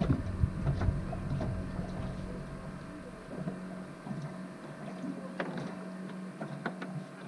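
Steady low hum of boat motors, with knocks and scattered sharp clicks of fishing tackle being handled in a small boat. The knocks are heavier in the first few seconds.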